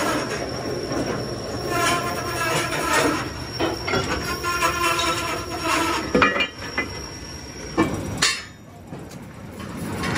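Metal lathe turning a mild-steel truck rim plate, the cutting tool squealing on the steel as it cuts. The squeal gives way to a few sharp metal knocks about six seconds in, with a loud clank a little after eight seconds.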